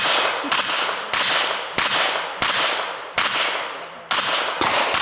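A string of about eight revolver shots, roughly one every half to three-quarters of a second, with steel target plates ringing after hits.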